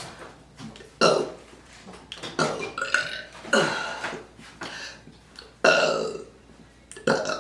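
A woman burping several times in a row, separate burps about a second apart, the loudest about a second in and another strong one past halfway.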